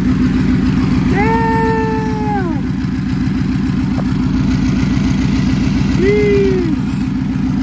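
A vehicle engine idling steadily. Over it come two drawn-out pitched tones that rise, hold and fall: one about a second in, lasting about a second and a half, and a shorter one about six seconds in.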